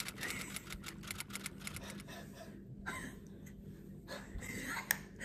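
Hard, dry pieces of uncooked spaghetti being chewed, a quick run of sharp crunchy clicks that thins out after about two seconds into scattered crunches.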